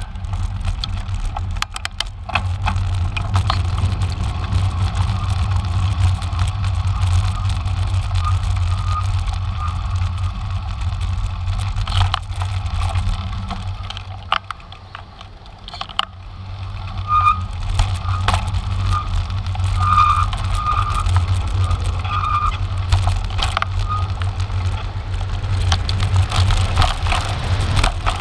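Riding a cross bike: wind rumbling on the microphone, with rattles and knocks from the bike on a rough lane. The rumble eases for a moment about halfway through.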